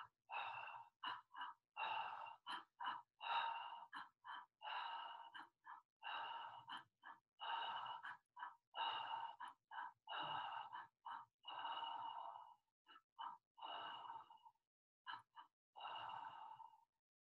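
A woman's quick, rhythmic breathing in and out through an open mouth as a quickened breathwork exercise, short breaths mixed with longer ones, coming one after another with brief silent gaps.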